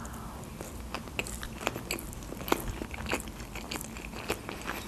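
Close-miked chewing of a mouthful of fried sushi roll, with irregular sharp crackles and clicks from the mouth.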